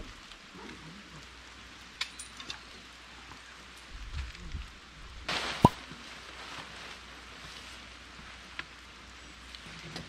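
Steady patter of light rain with a few small clicks; about five seconds in, a large tarp is shaken out with a brief loud rustle and a sharp clack.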